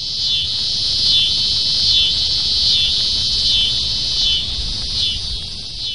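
Loud, steady insect chorus, shrill and continuous, with a falling chirr repeating about every second.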